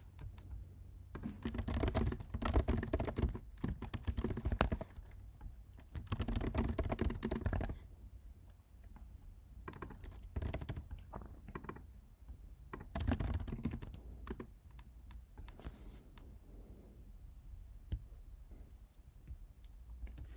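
Typing on a computer keyboard: fast runs of keystrokes lasting a second or few at a time, broken by short pauses, thinning to a few scattered key clicks near the end.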